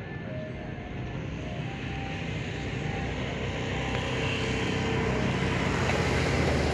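An engine approaching, its noise growing steadily louder.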